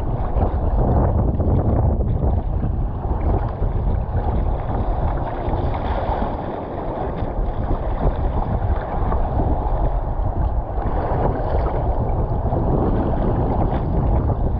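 Water sloshing and splashing against the hull of an Epic V7 surfski paddled through choppy water, with wind noise on the microphone.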